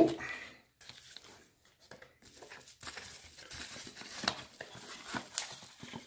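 A small cardboard box being opened by hand and its bubble-wrapped contents slid out: scattered scrapes and rustles of cardboard and plastic packaging.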